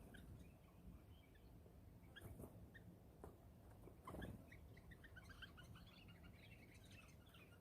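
Faint, quick high chirps from small birds, coming thickest in the second half, over near silence, with a soft knock about four seconds in.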